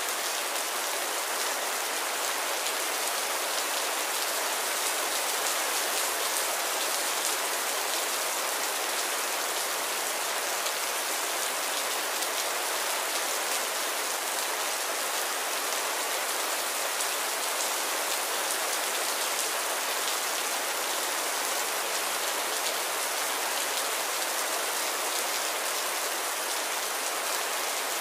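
Heavy rain falling steadily, a dense even hiss of drops striking the ground.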